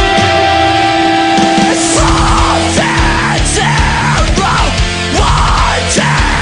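Loud heavy rock music soundtrack. About two seconds in, a driving drum beat and the full band come in over the held chords.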